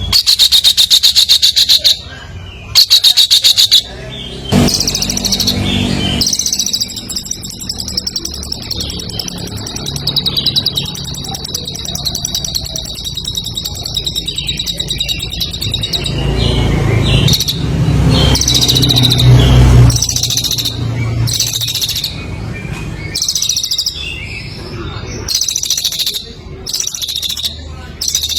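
Songbird singing loudly in fast, buzzy trills centred high in pitch. Short bursts come in the first few seconds, then one long unbroken trill of about ten seconds, then more short bursts. This is the kind of chattering competition song used as a master recording to tutor caged songbirds.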